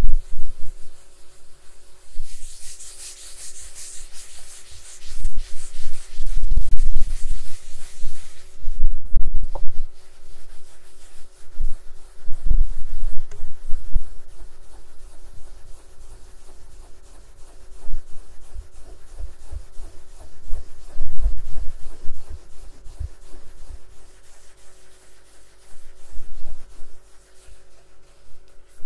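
Rubbing and scratching on the surface of a case. A brighter, hissier stretch of rubbing runs from about two to nine seconds in, with soft low thumps from handling throughout.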